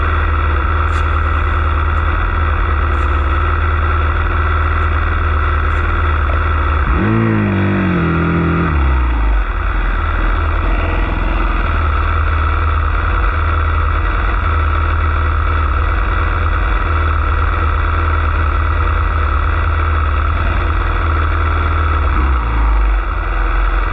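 Dirt bike engine idling steadily close to the microphone. About seven seconds in, another dirt bike revs and pulls away, its pitch falling over a couple of seconds.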